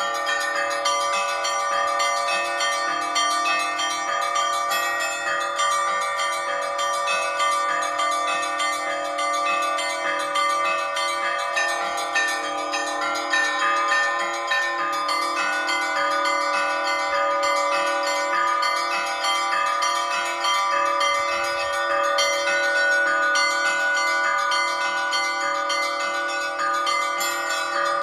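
Orthodox church bells rung together in a continuous peal (zvon): many bells of different pitches chime rapidly over a deeper bell.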